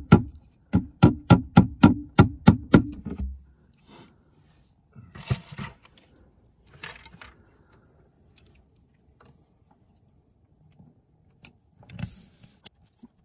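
A hammer driving a cable staple into a wooden attic joist to fasten electrical cable: a quick run of about a dozen sharp blows, roughly four a second, stopping about three seconds in. Faint rustling of the cable being handled follows.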